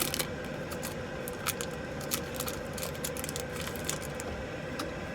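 A foil Pokémon booster pack being opened by hand: the wrapper crinkles and crackles in scattered sharp bursts.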